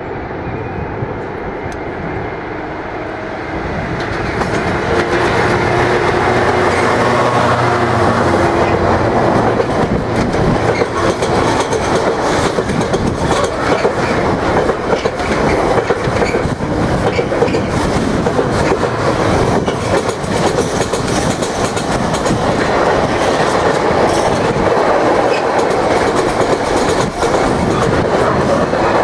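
A Class 66 diesel locomotive's two-stroke V12 engine runs under power as it nears and passes, louder from about four seconds in. It is followed by a long train of loaded container wagons rolling past, their wheels clattering over the rail joints in a steady rumble.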